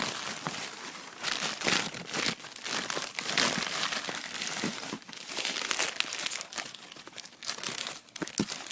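Packaging crinkling and rustling in irregular, crackling bursts as it is handled and pulled away.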